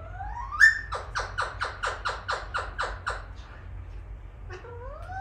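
Alexandrine parakeet calling. A loud rising whistle comes about half a second in, then a rapid run of about ten harsh calls at about five a second, then another rising whistle near the end.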